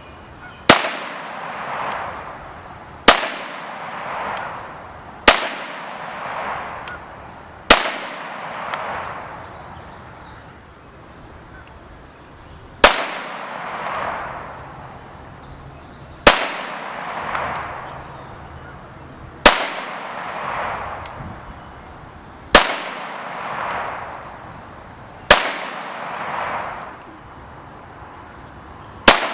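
A 9mm Glock pistol fired ten times in single shots, two to five seconds apart, with a longer pause in the first half. Each sharp report is followed by a rolling echo about a second later.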